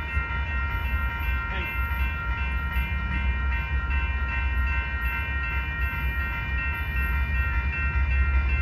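Railroad grade-crossing warning bell ringing steadily while the crossing's signals are active, over a steady low rumble.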